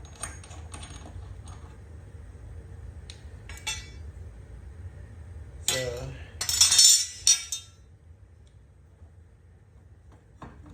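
Metal parts of a lawn mower's blade assembly clinking and knocking as they are handled. A louder metallic clatter lasts about a second, a little past halfway.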